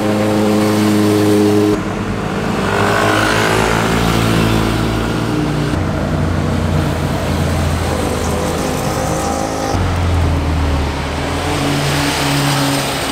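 Sport motorcycle engines and exhausts as bikes ride past through a bend, with the engine note rising and falling in pitch. The sound is spliced from several short clips, so the engine note changes suddenly three times.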